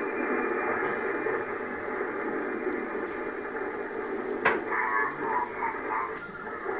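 Amateur radio transceiver's receiver audio after a call: steady static hiss with faint, garbled signals in it, while the operator listens for replies. A sharp click about four and a half seconds in.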